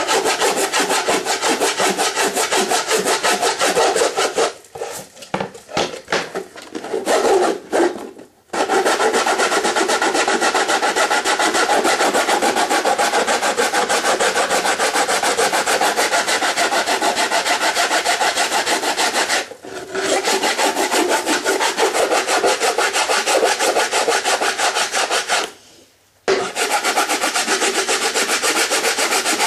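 Fast, rhythmic abrasive rasping as the hardened plastic-and-super-glue filler on a 3D printer's print bed is ground down. The strokes stop and start a few times between about 4 and 8 seconds in, stop briefly again near 20 seconds, and stop once more around 26 seconds.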